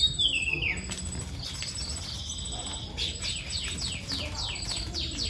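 Caged songbird singing: a falling whistled phrase at the start, a held high note about two seconds in, then a quick run of repeated falling chirps, about four a second.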